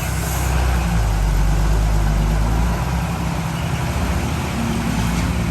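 Heavy diesel engine of an earthmoving machine running steadily under load, with a deep, even engine note.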